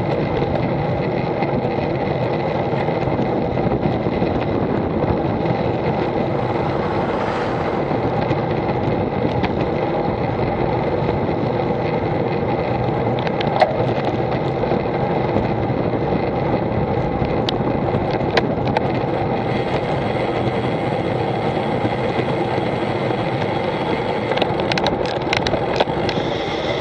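Steady wind and road rumble on a camera riding on a moving bicycle, with a few sharp clicks and rattles, more of them near the end.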